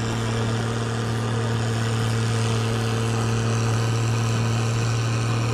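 International Harvester 1255 XL tractor's diesel engine running steadily at an unchanging pitch, held after a pull.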